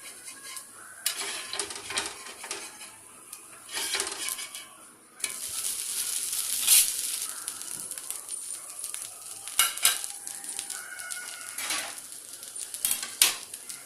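Dosa batter sizzling on a hot griddle: a steady high hiss that starts suddenly about five seconds in, after a few seconds of metal utensil scrapes and clinks on the pan, which carry on over the sizzle.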